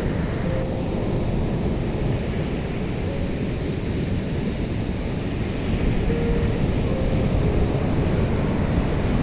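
Ocean surf: a continuous deep wash of waves breaking on a beach, swelling a little about six seconds in.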